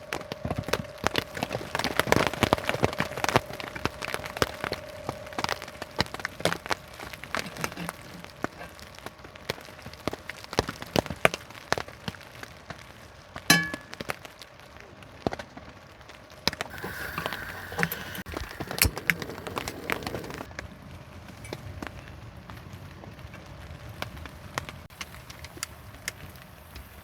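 Rain pattering on a tent: many irregular taps and clicks over a steady patter, with an occasional louder clink or knock.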